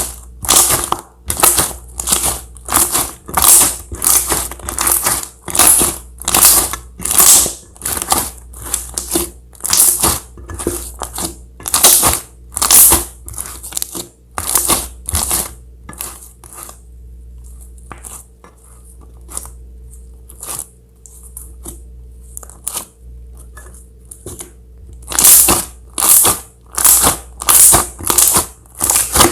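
Slime being squeezed and worked by hand, a quick series of squishes about twice a second. The squishes thin out and fall quieter about halfway through, then pick up again a few seconds before the end.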